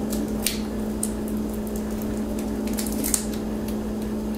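Dry garlic skins crackling faintly as cloves are peeled by hand, a few short crisp ticks over a steady low hum.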